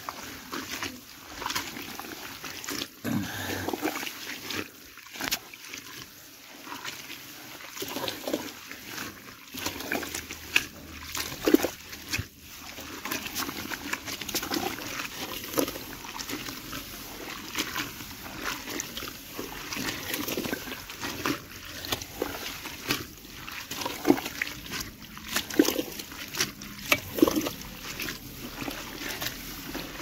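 A hand squelching and slopping through wet chopped green leaves mixed with water in a pot, kneading homemade pig feed, in irregular wet squishes.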